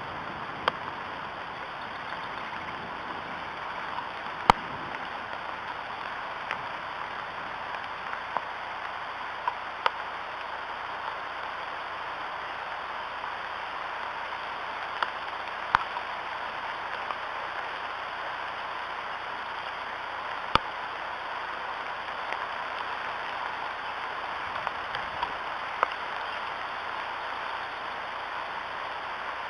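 Steady rain falling on an eagle nest, with scattered sharp taps at irregular intervals from drops striking close to the microphone.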